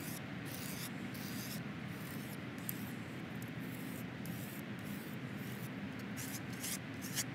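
Wooden knife rubbed back and forth against a gritty cinder block wall: steady dry scraping in quick repeated strokes as the block grinds the wood down and smooths its edge.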